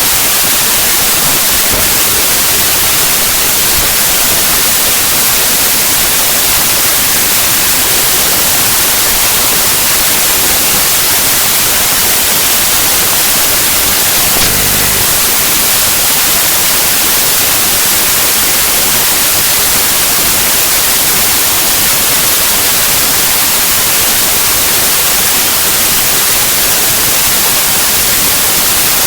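Raw bytes of a compressed zip archive played as 8-bit unsigned audio, giving loud, steady harsh static like white noise. A brief low blip comes about halfway through.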